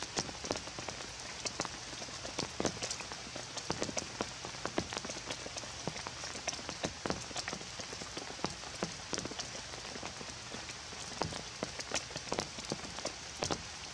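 Rain falling: a steady hiss with many irregular drops striking leaves, rock and puddles.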